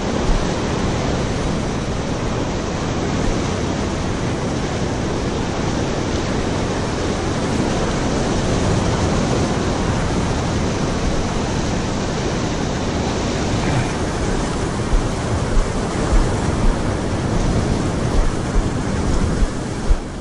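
Rough surf breaking and washing over shoreline rocks close by: a loud, steady rush of white water, mixed with wind buffeting the microphone. A few short low bumps come near the end.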